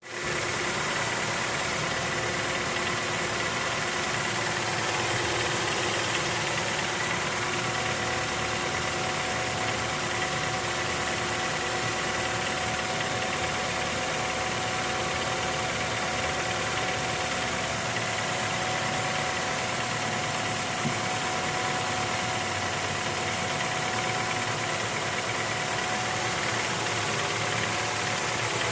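Honda Accord's F23A 2.3-litre inline-four engine running at a steady speed with a knock from inside the engine.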